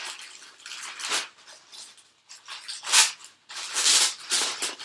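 Rustling of clothing and its packaging as a pair of trousers is pulled out and unfolded, in irregular bursts with the loudest about three seconds in.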